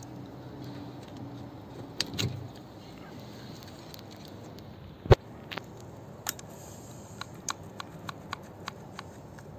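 Small plastic clicks and taps as a car door lock actuator is unplugged and handled, with one sharp click about five seconds in and a faint low hum in the first couple of seconds.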